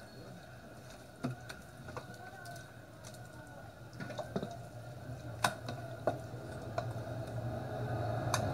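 Hands working a thick jerk marinade into raw chicken in a metal baking pan: soft wet squishing with a few sharp clicks and taps.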